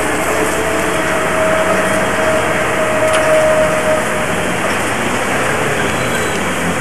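Steady hiss of a standing DB class 03.10 steam locomotive, 03 1010, with a faint whine that fades out about four seconds in.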